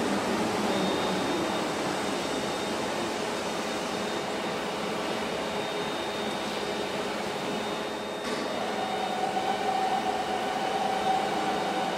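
Steady hum and whine of a five-axis gantry CNC router running, with a faint high steady tone over it. A little after eight seconds in the sound breaks briefly and a stronger, lower whine takes over.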